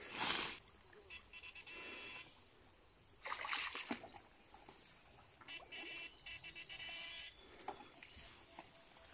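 Shallow stream water stirred by electrofishing poles: two brief splashes, the louder right at the start and another about three and a half seconds in, with short spells of a high, pulsing buzz between them.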